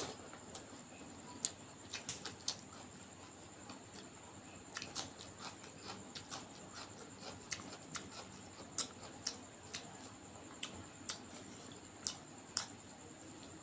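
Close-miked eating sounds: wet chewing and lip smacks, heard as a string of irregular sharp clicks as duck curry and rice are eaten.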